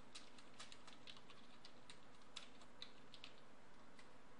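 Faint typing on a computer keyboard: a quick, irregular run of key clicks as a short line of text is typed, over a steady low hiss.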